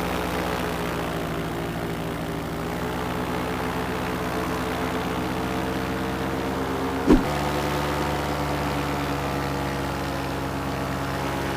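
Air Conception Nitro 200 paramotor engine and propeller running steadily in flight. A brief knock about seven seconds in, after which the engine note shifts slightly.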